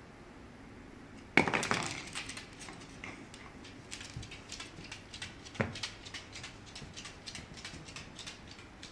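A dog gnawing on a bone: a sudden loud knock, then a run of irregular clicks and crunches of teeth on bone, with another loud crack about halfway through.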